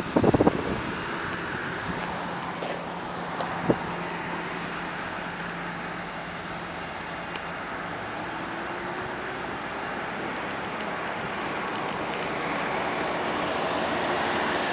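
Steady traffic and airport ground noise: cars passing on the perimeter road and distant aircraft engines, with a faint steady hum at first and a single knock about four seconds in, growing a little louder near the end.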